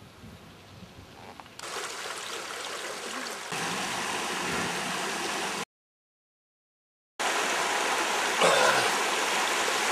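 A small river rushing over a low step in its bed, an even rush of water. It is faint at first, steps up twice in the first few seconds, and cuts out for about a second and a half. It then comes back steady, with one brief louder bump about eight and a half seconds in.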